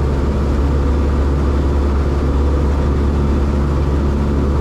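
Cessna 162 Skycatcher's four-cylinder Continental O-200 engine and propeller running steadily in cruise flight, a constant drone heard from inside the cockpit.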